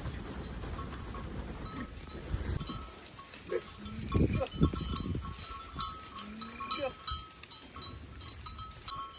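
A flock of sheep jostling in a pen, with short bleats a few seconds in and small bells tinkling throughout.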